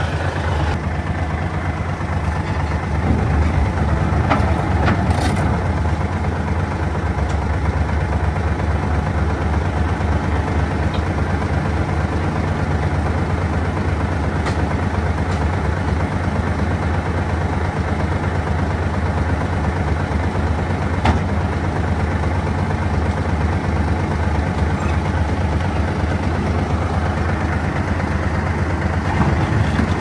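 Dump truck engine running steadily, a low even sound that holds throughout.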